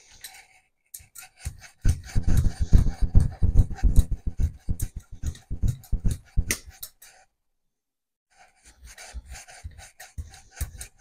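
Rubber brayer rolling acrylic paint out across a gel printing plate, back and forth: a rough, rubbing roll made of many quick crackling strokes. It pauses for about a second past the middle, then carries on more quietly.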